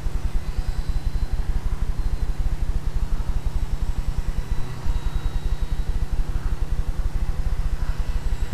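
Wind buffeting a tiny keychain camera's microphone: a steady low rumble that flutters rapidly, with a faint thin whine above it.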